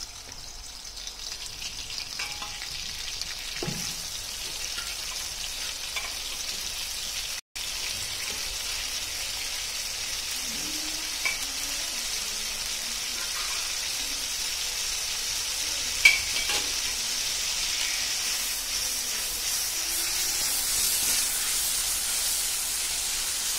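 Cooked beef pieces frying in hot coconut oil in a wok, a steady sizzle that grows louder over time. A few clinks of a metal ladle against the pan come through, the sharpest about sixteen seconds in. The sound cuts out for an instant about seven and a half seconds in.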